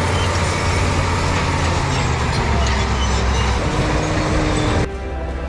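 Heavy machinery running: a steady low engine drone under broad mechanical noise, cutting off abruptly near the end.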